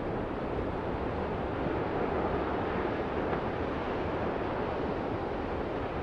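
Ocean surf: waves breaking and whitewater washing in a steady, even roar, with no single crash standing out.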